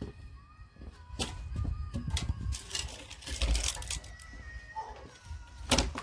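Axe striking firewood: a series of sharp wooden knocks and cracks, the loudest just before the end.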